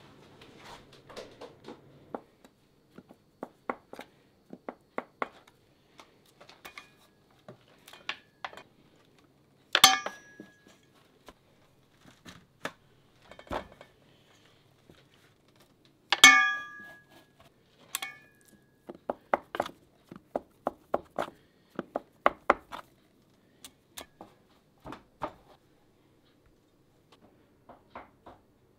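Kitchen work with dishes and utensils: a string of short clinks and knocks, with two loud ringing clinks about ten and sixteen seconds in.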